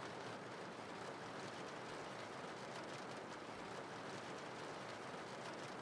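Steady rain: a faint, even hiss of falling rain.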